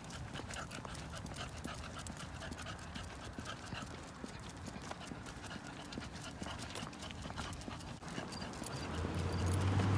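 Footsteps of a person and a leashed dog on a concrete sidewalk: a quick run of light clicks and taps. Near the end the low hum of a car grows louder as it approaches.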